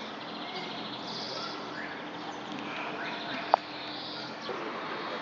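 Birds chirping over a steady outdoor background, with a single sharp click about three and a half seconds in.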